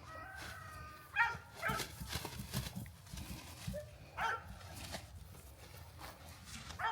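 A dog barking a few times, single short barks a second or more apart.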